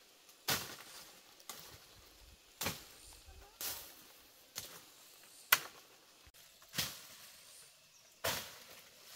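A hand tool struck repeatedly while digging out tubers: eight sharp chops, roughly one a second with uneven spacing, each dying away quickly.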